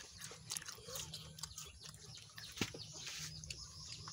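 Raw jicama being chewed close up: irregular crisp crunches and clicks, one sharper crack about two and a half seconds in.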